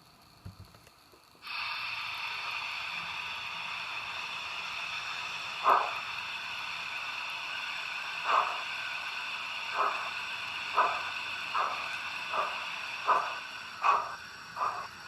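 Digital sound decoder of a model BR 18 steam locomotive playing through the model's small loudspeaker. A steady steam hiss starts suddenly about a second and a half in. From about halfway, exhaust chuffs begin, widely spaced at first and then coming faster and faster, as in a steam engine getting under way.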